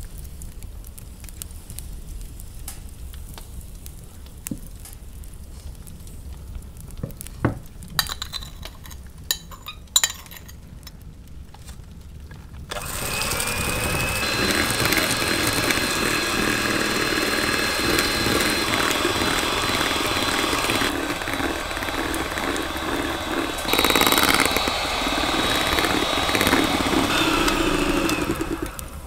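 Electric hand mixer switched on about halfway through, whirring steadily as its twin beaters whisk an egg mixture in a stainless steel bowl. Before it starts there are only light clicks and knocks of utensils against the bowl.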